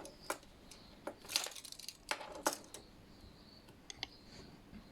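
A few light clicks and short scrapes, spaced irregularly, from measuring and marking shelf sizes with a tape measure and pencil.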